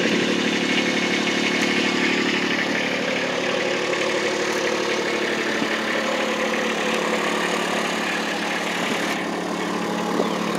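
Kubota RTV-X1100C utility vehicle's three-cylinder diesel engine idling steadily.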